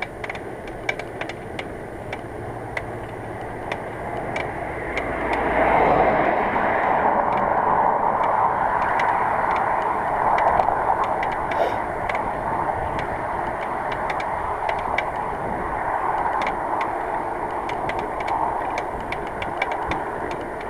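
Riding noise from a moving bicycle: a steady rushing sound with sharp clicks throughout, growing louder about five seconds in.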